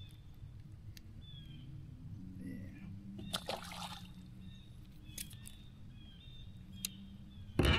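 Quiet lake sounds with light water trickling and small bird chirps over a low hum. There is a brief splashy rush about three and a half seconds in, and a sharp thump just before the end, the loudest sound.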